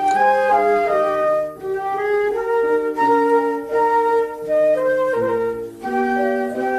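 Instrumental music: a flute-like melody of held notes stepping up and down over a sustained accompaniment and bass, the instrumental break of a children's song.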